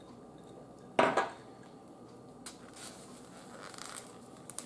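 A glass tumbler set down on a table with one sharp knock about a second in, a brief ring after it. Quieter clatter and rustle of a dinner plate being handled follows.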